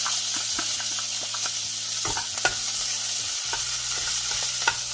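Curry leaves sizzling in hot oil with popped mustard seeds and browned urad dal in a metal kadai, a steady high hiss, while a metal spoon stirs and scrapes the pan with small clicks. Two sharper clicks stand out, about halfway and near the end.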